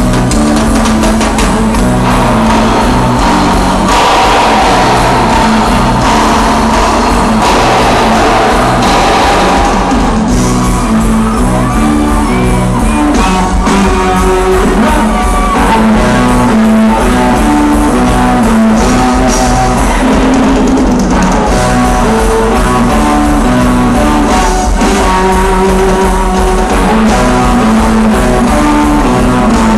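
An axé band playing live and loud through a concert sound system, with a repeating bass line, drums, guitar and singing.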